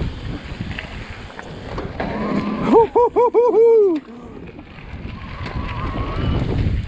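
Mountain bike rolling over a dirt trail, with tyre rumble and wind buffeting the camera microphone. About three seconds in comes a short wavering pitched call of five quick pulses, the last drawn out and falling, louder than the riding noise.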